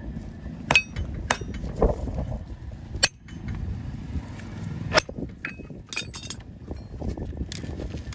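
Sharp metal clinks of a farrier's tool against the old steel horseshoe on a mule's hoof, coming irregularly about six times over a steady low background noise.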